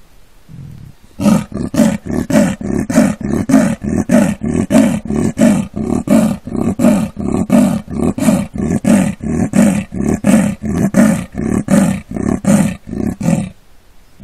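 Male Amur leopard giving its territorial call, the sawing call of a leopard: a long, even series of about two dozen loud grunting strokes at roughly two a second, starting about a second in and stopping shortly before the end.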